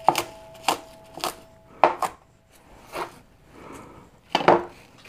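Kitchen knife rough-chopping curly kale on a cutting board: uneven sharp knocks of the blade against the board, about eight in all. A faint steady ringing tone fades out over the first half.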